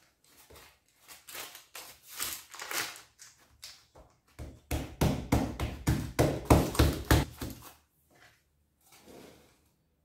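Crumpled baking paper crinkling and rustling as hands press bread dough into a paper-lined loaf tin. From about the middle comes a louder run of dull thumps and knocks as the dough is pressed down in the tin, then a last faint rustle near the end.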